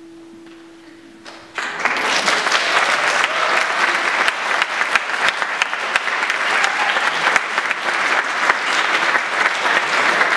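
The last held sung note of a choir fades out, then an audience in church pews breaks into applause about one and a half seconds in, with dense steady clapping.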